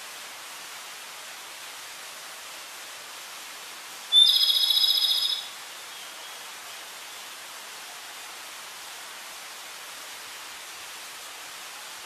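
A flycatcher gives one high, trilled call lasting about a second and a half, starting about four seconds in. A steady hiss runs underneath.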